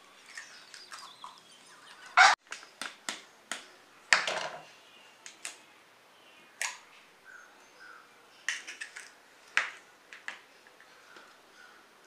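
Eggs being cracked and separated by hand: a series of sharp taps and shell cracks, the two loudest about two and four seconds in, with smaller clicks of shell, knife and spoon against plastic bowls.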